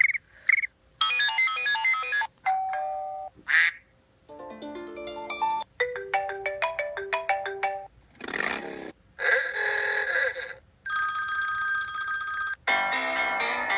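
A quick run of different iPhone ringtones and alert tones, about ten short chimes, arpeggios, plucked-note jingles and a bell-like ring, each lasting about a second before stopping abruptly and giving way to the next.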